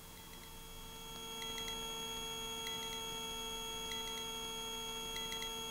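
Steady electrical whine of several pure tones on the helicopter's intercom audio, growing a little louder about a second in, with faint triple blips repeating a little more than once a second.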